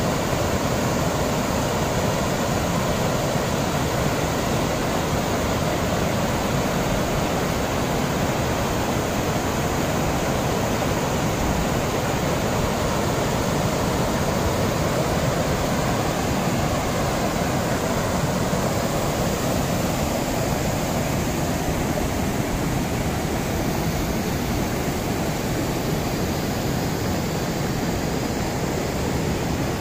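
Rain-swollen floodwater rushing steadily down a mountain torrent.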